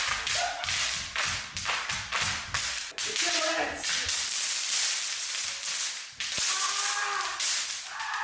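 Party snaps (bang snaps) going off in a dense, continuous crackle of sharp pops. Short wordless shouts break in about three and a half seconds in and again near the end.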